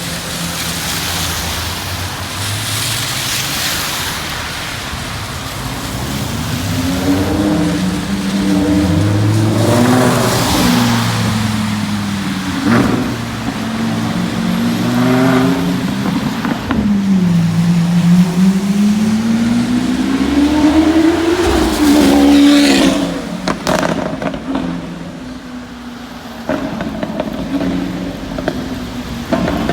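Lamborghini Aventador V12 with a Novitec exhaust, revving and pulling away, its pitch climbing and falling several times, with sharp exhaust crackles and pops in among the revs. The sound falls away about three-quarters of the way through.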